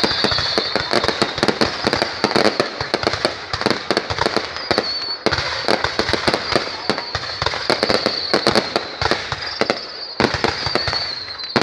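Fireworks going off in a dense, irregular string of cracks and pops, with a high wavering whistle running over them.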